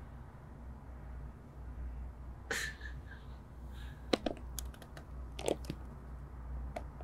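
Scattered light clicks and soft rustles close to the microphone, a cluster of them in the second half, over a low steady room hum.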